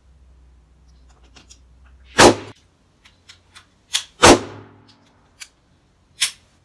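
Handgun shots fired at a target on a range: two loud shots about two seconds apart, each with a short echoing tail. Quieter sharp cracks come just before the second shot and again near the end, with a few light clicks in between.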